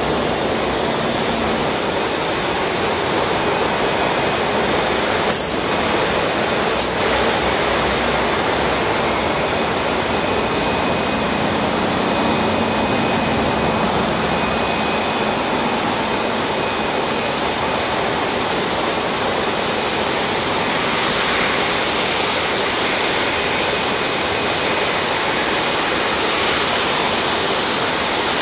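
Steady, even roar of jet aircraft engines on an airport apron. Two brief clicks come about five and seven seconds in.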